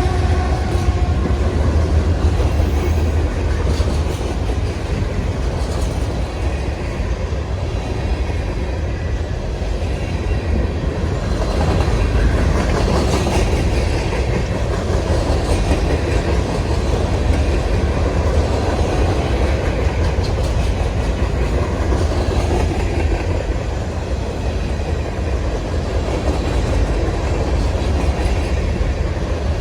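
Norfolk Southern freight train rolling past, its cars' wheels clattering steadily over the rails.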